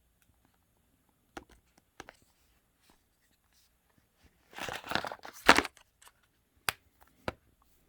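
Handling of a new iPhone 11 Pro Max's packaging: a few light clicks, then a loud burst of crinkling and tearing of wrapping about five seconds in, and two sharp clicks near the end.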